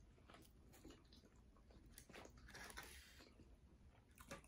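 Very quiet eating sounds: faint chewing of pizza, with a few soft clicks and a light rustle as food is picked up from the plate.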